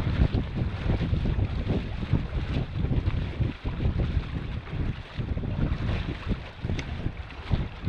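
Strong wind buffeting the microphone in gusts, a deep uneven rumble, over water washing against a canoe.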